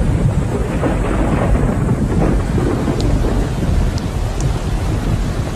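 Thunder rumbling loudly and continuously, with rain falling: a storm marking the return of the rains after the dry season.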